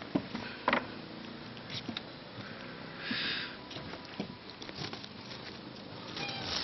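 Scattered knocks and rustling from a handheld camera being moved about and brushed through garden leaves, with two sharp knocks within the first second and a brief leafy rustle about three seconds in.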